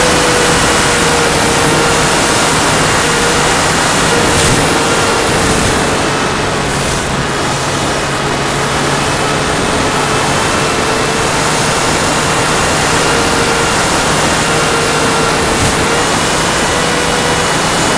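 Electric motor and propeller of a Go Discover FPV model plane in flight, a steady whine under a loud rush of air over the onboard camera's microphone. The whine's pitch shifts up a little near the end as the throttle changes.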